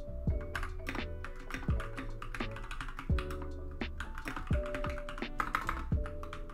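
Typing on a mechanical keyboard fitted with Akko Very Peri keycaps: quick, irregular key clicks and clacks. Background music with a steady beat plays under the typing.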